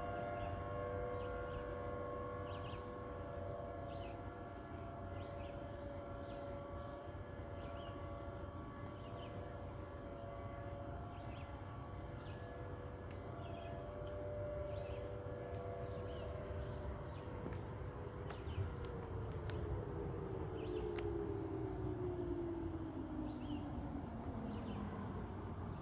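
Several Federal Signal outdoor warning sirens sounding steady overlapping tones, which fade about two-thirds through as one siren winds down, its pitch sliding steadily lower until near the end: the sirens shutting off at the end of a test. Crickets chirp steadily throughout.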